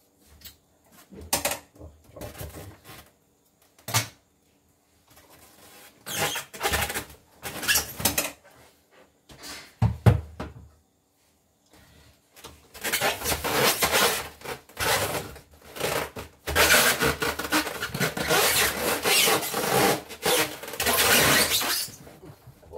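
Styrofoam packing and a cardboard box scraping and rubbing as an embroidery machine is worked loose and lifted out of its packaging. There are a few knocks in the first half, and the scraping becomes dense and near-continuous over the last ten seconds.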